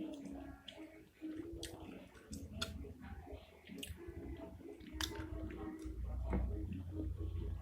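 Close-up wet chewing and lip-smacking of a person eating spicy meatballs (pentol mercon), with sharp smacks scattered through and louder chewing near the end.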